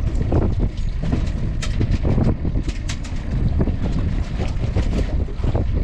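Wind buffeting the microphone with a steady low rumble, over several sharp knocks and clatters as a wire-and-netting lobster pot is handled aboard a small boat.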